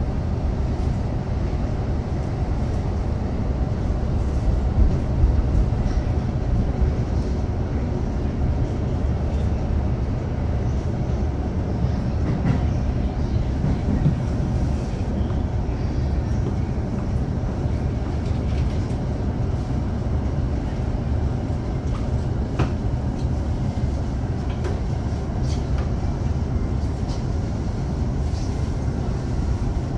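A JR Chuo Line rapid train heard from inside the carriage while running between stations: a steady low rumble from the wheels and running gear, with a few faint clicks.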